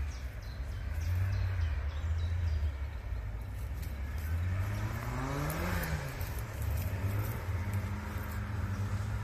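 Off-road race vehicle's engine running with a steady low rumble, revving up and back down once about halfway through, then holding a steady higher note near the end.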